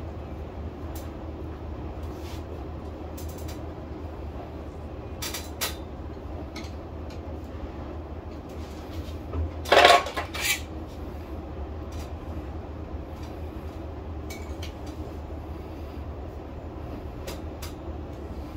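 Scattered light metallic clicks and taps as small metal hardware and a hand tool are handled during blind bracket mounting. The loudest is a short clatter about ten seconds in, heard over a steady low hum.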